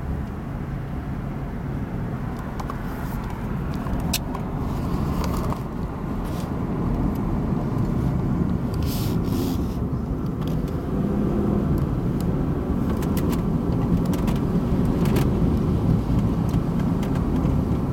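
Car driving on a winding road, heard from inside the cabin: steady engine hum and tyre rumble that grow gradually louder over the second half, with a few faint clicks.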